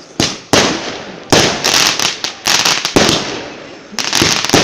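Fireworks going off: a rapid, irregular series of sharp bangs, some coming in quick clusters, each with a short echoing tail.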